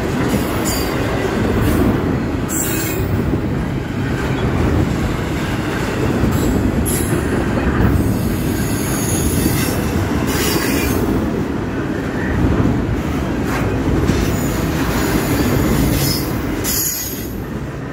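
Norfolk Southern double-stack intermodal freight train rolling past, its container well cars' wheels making a steady loud rumble on the rails, with a few brief high-pitched wheel squeals now and then.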